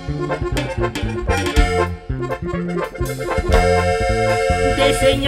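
Live band playing an instrumental passage with no singing: a sustained lead melody over a steady bass line and regular drum hits, played loud through the sound system.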